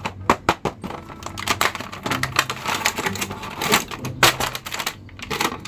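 A few sharp clicks, then dense crinkling and crackling of clear plastic packaging as an action figure is pulled from its box in its plastic tray and bag.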